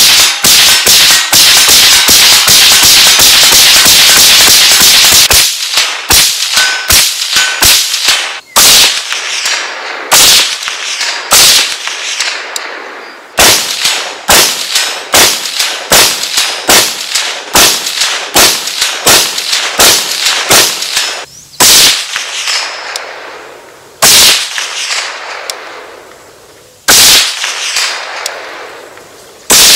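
Kel-Tec CMR-30 semi-automatic rifle firing .22 WMR (22 Magnum) rounds. It opens with a rapid string of shots lasting about five seconds, then fires separate shots at roughly one to two a second, with a few brief pauses.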